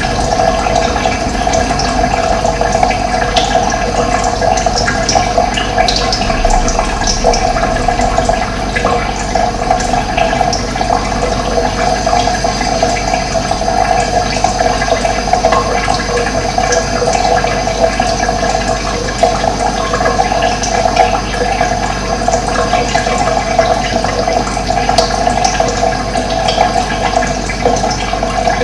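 Running water rushing steadily, with short high bird chirps scattered through it.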